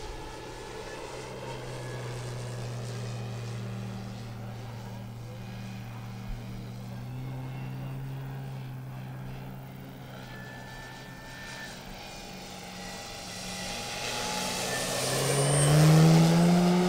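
Electric brushless outrunner motor and large propeller of a giant-scale RC Robin DR 400 in flight, giving a steady propeller hum. Near the end it grows louder and rises in pitch as the plane comes close.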